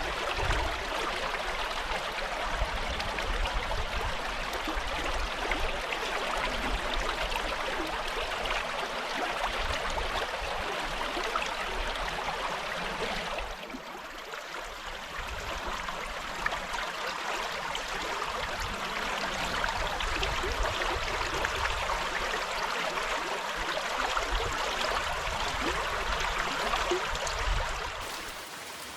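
River water rushing over rocks, a steady hiss of flowing water with an uneven low rumble beneath it. It drops in level briefly about halfway through, then carries on.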